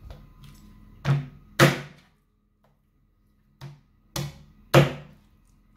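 A knife chopping raw chicken wings into pieces on a bamboo cutting board: five sharp thunks of the blade striking the wood, two about a second in and three more about two seconds later, the first of those lighter.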